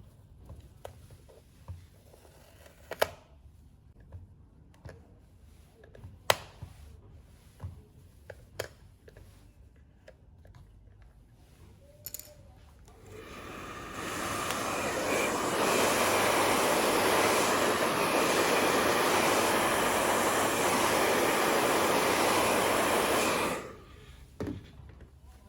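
Light clicks and knocks of handling, then a steady rush of blown air starts about halfway through, holds for about ten seconds and cuts off sharply. It is air being blown to clear dust from inside the projector.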